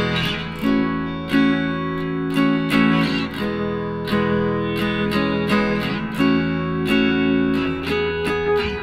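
Background music: acoustic guitar picking and strumming a steady, gentle tune.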